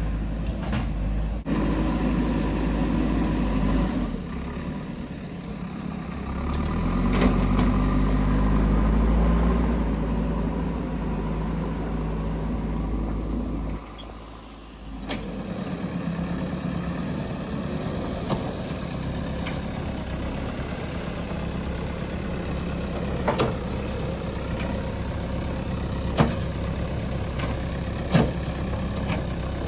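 JCB 3DX backhoe loader's diesel engine working, swelling twice in the first half as it is loaded, then running steadily with a few sharp knocks near the end.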